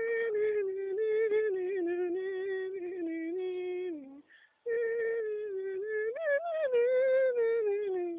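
A single high, singing-like voice holding long wavering notes in two phrases of about four seconds each, with a short break between them.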